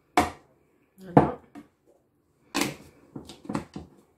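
Sharp knocks and clatters of kitchen utensils being handled and set down beside a mixing bowl: one just after the start, two about a second in, then a quicker run of them in the second half.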